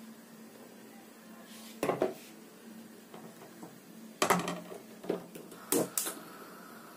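Metal pots being moved around on the metal grates of a gas hob: a knock about two seconds in as a small pot is set down, then a cluster of clanks and knocks from about four to six seconds as a saucepan is shifted onto another burner.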